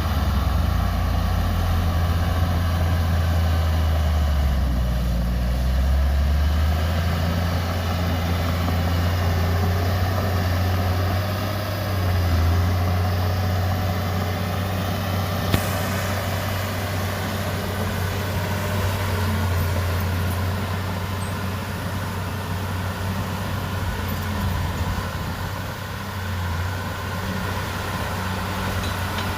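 Heavy diesel engine of earthmoving machinery running steadily at a low, even pitch, with one sharp click about halfway through.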